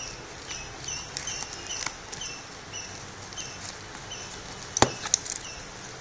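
Cardboard parcel being worked open with a utility knife: light scraping and tapping, then two sharp clicks close together about five seconds in. A faint high chirp repeats about twice a second in the background.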